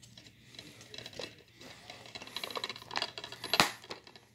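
Plastic DVD case being handled and turned over: light rubbing and small clicks of the plastic, then one sharp click about three and a half seconds in.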